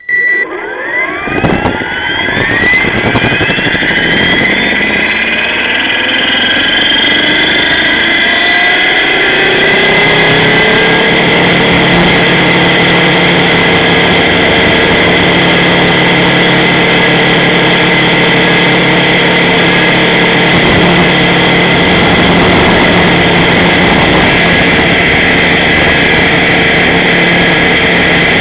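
Align T-Rex 500 electric RC helicopter's brushless motor and rotor spooling up: a whine that rises in pitch over the first several seconds, then holds a steady whine and hum once the rotor reaches flying speed, about nine seconds in.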